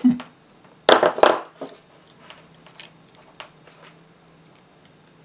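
Handling noise from 18650 lithium-ion cells and multimeter test probes being moved and set down on a paper-covered desk. There is a thump at the start, a short clatter of knocks about a second in, and then a few light clicks.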